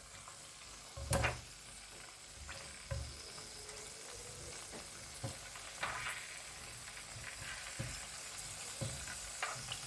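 Chicken wings frying in hot oil in a pan: a steady sizzle, with occasional knocks, the loudest about a second in.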